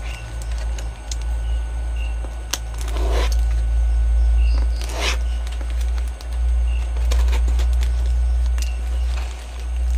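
Packing tape on a cardboard parcel being picked at and slit with a small pointed tool, giving a few sharp scrapes and crackles, the biggest about three and five seconds in. A loud steady low hum runs underneath.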